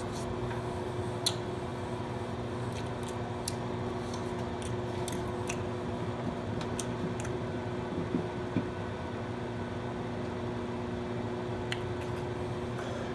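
Someone chewing a bite of microwave cheese pizza, with small wet mouth clicks scattered through, over a steady low hum.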